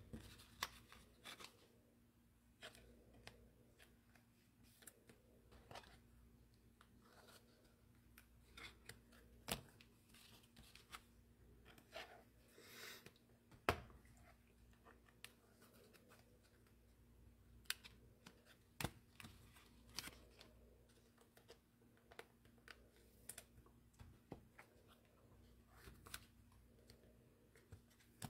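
Faint scattered clicks and rustles of trading cards and plastic cello pack wrappers being handled, with a longer rustle about halfway through, over a faint steady low hum.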